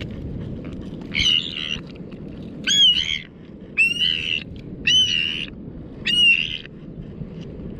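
A bird tangled in fishing line squawking in distress: five loud, harsh calls about a second apart, each about half a second long.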